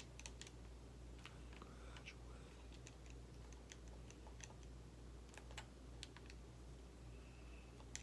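Near silence: room tone with a low steady hum and faint, irregular clicks scattered throughout.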